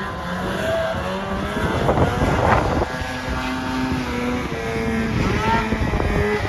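Snowmobile engines running and revving, their pitch rising and falling, with a louder rushing surge about two and a half seconds in.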